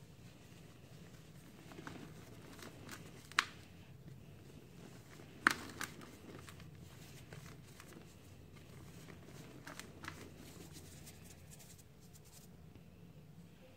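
A dry cement cake snapping and crumbling in bare hands. Two sharp cracks come about three and a half and five and a half seconds in, and soft gritty rustling follows as the cement powder sifts through the fingers.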